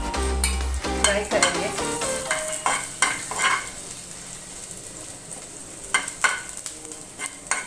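Chopped ginger and garlic sizzling in a little hot oil in a non-stick frying pan while a steel spoon stirs and scrapes them in separate strokes. The strokes come mostly in the first four seconds, with two more about six seconds in. The aromatics are being fried lightly, not browned.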